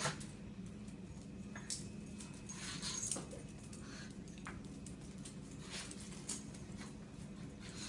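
A dog and a cat play-fighting on a tile floor: scattered scuffles and clicks of paws and claws on the tiles, with a few short noises from the dog, over a steady low hum.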